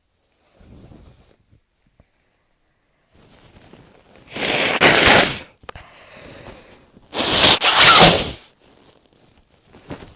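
A person sneezing twice, about three seconds apart. Each loud sneeze comes after quieter breathing.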